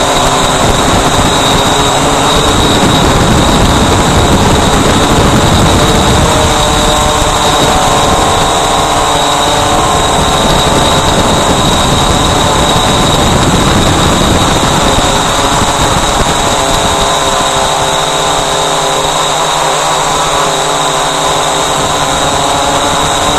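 Walkera Voyager 3 quadcopter's electric motors and propellers whirring steadily close to the microphone, their pitch shifting a little as the throttle changes, over a rushing of air, with a thin steady high whine.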